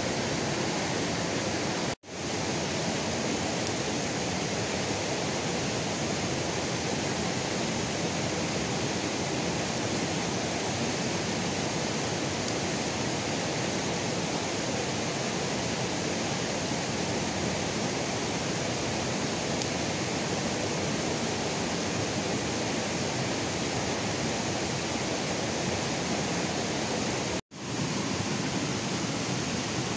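Steady rushing of a fast, rocky river. It cuts out for an instant twice, about two seconds in and again near the end.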